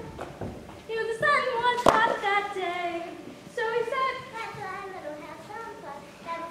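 Young voices singing on stage, held notes that slide from one pitch to the next. A single sharp knock about two seconds in.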